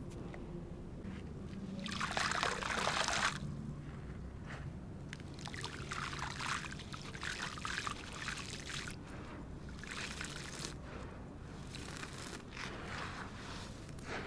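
Crumbly cement floor material and stones breaking up wet, in bursts of crunching and trickling. The loudest burst comes about two seconds in and lasts about a second, with softer ones after.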